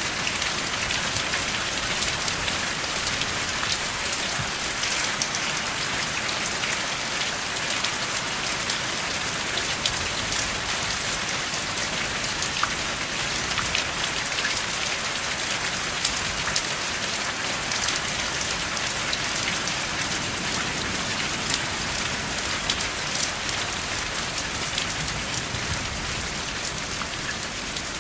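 Steady rain falling, a dense even hiss dotted with countless small drop ticks, without thunder.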